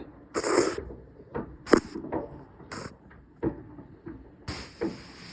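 Fireworks going off: a handful of sharp bangs and pops at irregular intervals, the loudest about two seconds in, with a longer hissing crackle near the end.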